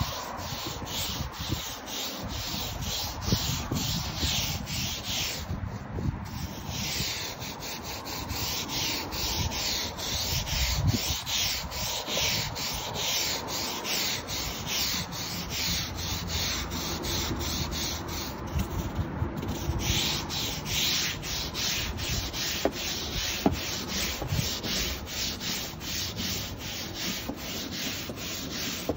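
Stiff-bristled long-handled deck brush scrubbing wet Dekorator Voyage deck boards, hard back-and-forth strokes at about two a second, stopping briefly twice.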